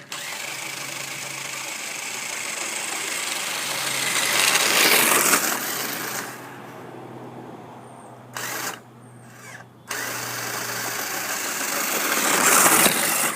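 Fastlane Power Strike toy RC car's small electric motor whirring as it drives, swelling louder twice as it runs close, with a short break about two-thirds of the way through.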